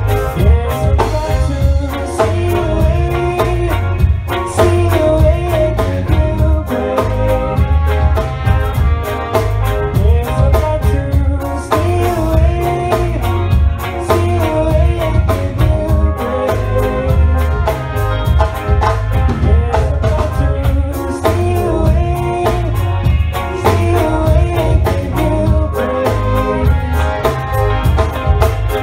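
Live reggae band playing with a heavy low end and a steady drum-kit beat, trumpet and trombone playing the melody over electric guitar.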